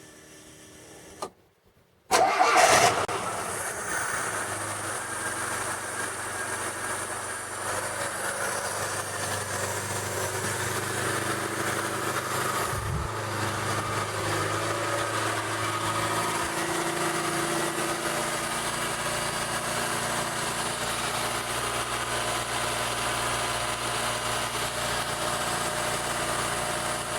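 ZAZ Tavria's 1.1-litre MeMZ-2471 fuel-injected four-cylinder engine starting about two seconds in with a brief loud flare, then idling steadily. The idle is quiet with a light valve clatter and no knock, the sign that the rebuild has cured the fault.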